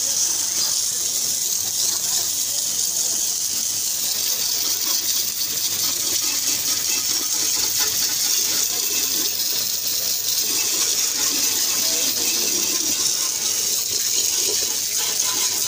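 High-pressure water jet from a pressure-washer lance spraying onto the painted steel body of a tractor trailer, a steady hissing spray that blasts off the old paint.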